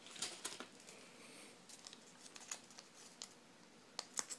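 Faint crinkling and small clicks of a plastic soy sauce packet being picked out of a sushi tray and handled, with a few sharper clicks about four seconds in as it is pinched between the fingers.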